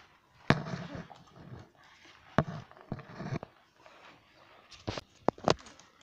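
A series of irregular sharp taps and knocks with faint rustling between them, from a notebook being handled on a tabletop. Four come close together near the end.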